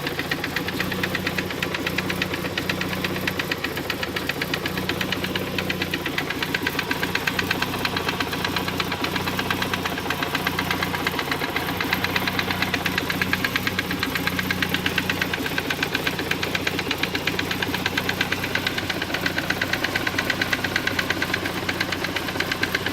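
1991 Saab 900 Aero's turbocharged 2.0-litre four-cylinder engine running steadily with a fast, regular knocking that keeps time with the engine; the owner does not yet know its cause.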